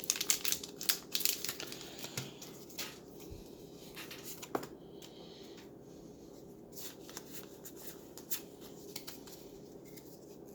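Foil booster-pack wrapper crinkling and tearing, with trading cards being handled: a dense run of crackles over the first few seconds, then only scattered soft rustles and ticks.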